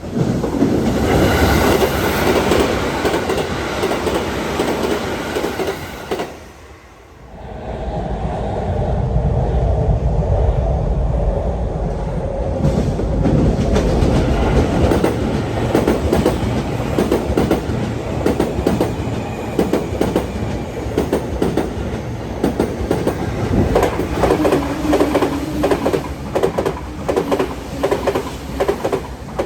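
Tokyu Meguro Line electric commuter trains passing a level crossing at close range: a steady rumble with wheels clacking over rail joints, dipping briefly about seven seconds in, with a quick run of wheel clacks near the end.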